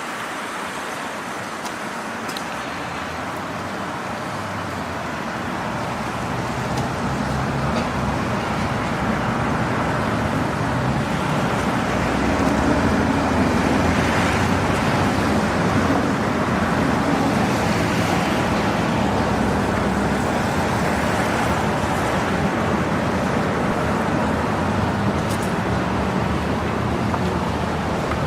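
Road vehicle engines running, growing louder over the first dozen seconds and then holding steady.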